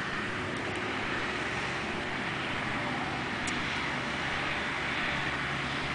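Steady background hum of distant road traffic, an even low rumble and hiss with no distinct events.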